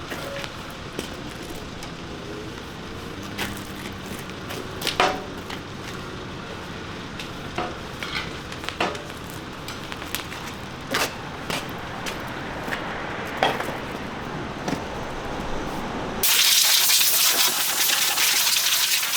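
Scattered metal clinks and knocks over a steady low hum, then a loud, steady hiss of compressed air cuts in suddenly about three seconds before the end.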